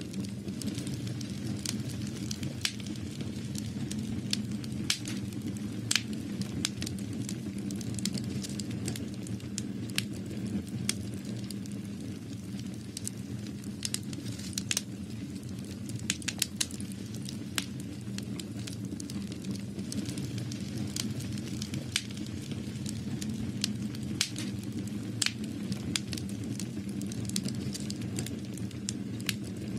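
Irregular crackling clicks, several a second, over a steady low hum.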